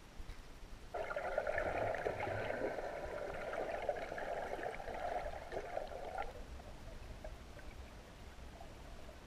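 Water gurgling and bubbling heard underwater, a dense crackle of small bubbly clicks that starts about a second in and stops after about five seconds, leaving a faint hiss.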